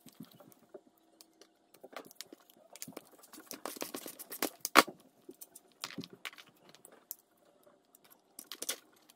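Ratchet wrench clicking as a 13 mm nut is backed off a starter solenoid terminal, mixed with small metallic clicks and taps from handling the starter and its wiring. The clicking is densest a few seconds in, with one sharp click about halfway through the loudest.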